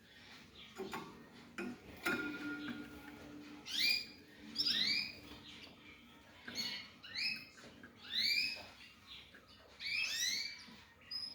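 Young African yellow canary × canary mule calling: short squeaky chirps, each rising then falling, repeated every half second to a second and a half from about four seconds in. A few faint clicks come before the chirps.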